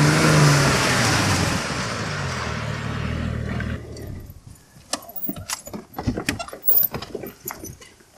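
A vehicle engine passing and fading away over about four seconds, followed by scattered light clicks and metallic clinks.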